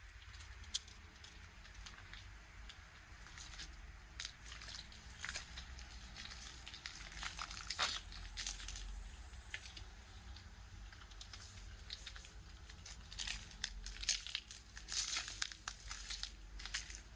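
Footsteps crunching over loose grit and debris, an irregular run of short crunches that grows busier near the end, over a low steady rumble.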